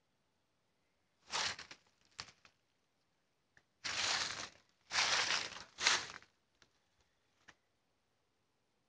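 Five short bursts of rustling and crunching, roughly a second apart and loudest near the middle, followed by a few faint clicks.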